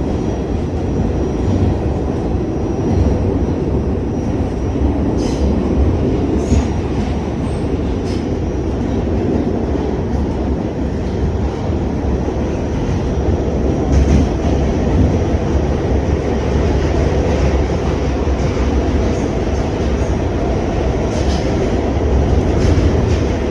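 New York City subway train running through a tunnel, heard from inside the car: a steady, loud rumble with a few faint clicks now and then.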